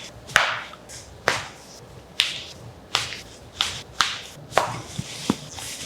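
A run of about nine sharp clicks or cracks during a chiropractic adjustment, spaced half a second to a second apart.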